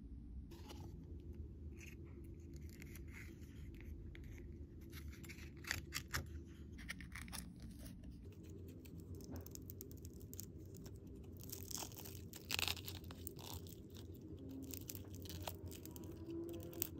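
Hands handling a pink plastic toy capsule crusted with crystals and sequins: scattered crackles, clicks and scrapes, loudest in a cluster about twelve seconds in, over a faint steady low hum.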